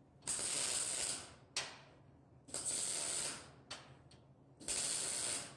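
MIG welder arc tack welding steel balusters to a railing frame: three separate arc bursts of about a second each, the first two followed by a short sharp click.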